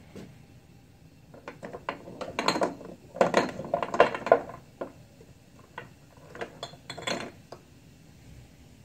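Kitchenware being handled and moved about: a run of knocks and clinks, loudest and busiest in the middle, thinning out to a few separate clicks near the end.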